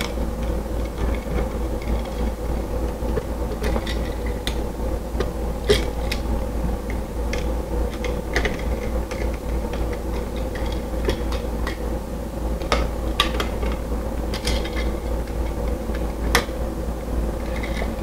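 Screwdriver tightening the brass terminal screws on a wall light switch: scattered small metallic clicks and scrapes over a steady low hum.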